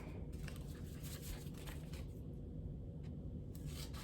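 Scissors cutting into a packet of hot chocolate powder: a few faint snips and crinkles of the packet, quieter in the middle.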